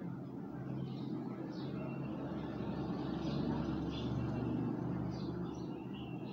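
A low, steady engine rumble that grows louder a little past the middle and eases again near the end.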